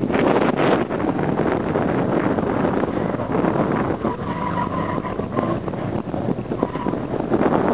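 Car engine running hard as the car is driven through an autocross cone course, with a short steady squeal, likely from the tyres, about four seconds in.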